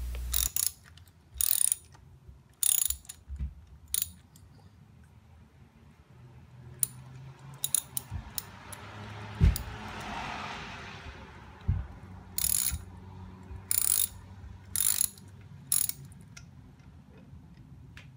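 Socket ratchet wrench clicking in short bursts of strokes as a bolt on the motorcycle's frame is turned, with pauses between the bursts. A single sharp knock about nine and a half seconds in.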